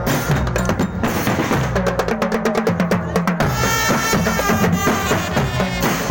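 Live percussion-led music: drums struck in a fast, dense rhythm, with a high pitched melody line joining about halfway through.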